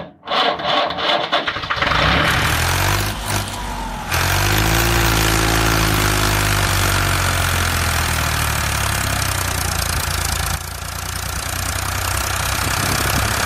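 Tractor engine starting: a few seconds of uneven knocking and clatter, then it catches about four seconds in with a brief rise in pitch and runs on steadily.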